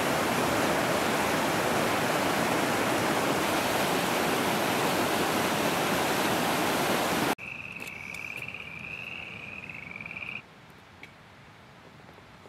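A mountain creek in high spring flow rushing as whitewater over fallen logs, a loud, steady wash that cuts off abruptly about seven seconds in. After the cut it is quieter, and a high trilled call repeats for about three seconds.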